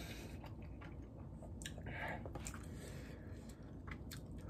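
Quiet close-up chewing of a mouthful of soft food, a dumpling from braised chicken jjimdak, with scattered small mouth clicks and a brief louder noisy moment about two seconds in.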